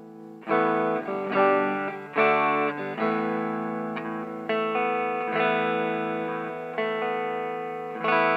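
Fender Stratocaster electric guitar played clean on the neck pickup through a 1970s Electro-Harmonix Dirt Road Special transistor amp. Chords are struck about once a second, each left ringing until the next.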